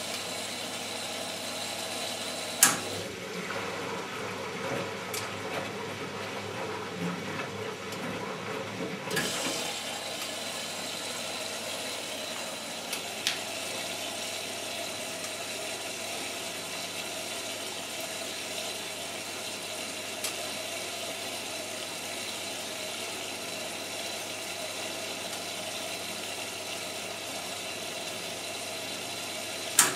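Siemens Siwamat 960 washing machine taking in water at the start of the main wash: a steady rush of inflowing water with a thin high whistle. A few sharp clicks come through it, with a loud click near the end.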